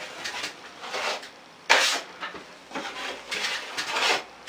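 Six-inch drywall knife drawn across a ceiling skim coat of setting-type joint compound: a series of short scraping swipes, the loudest a little under two seconds in.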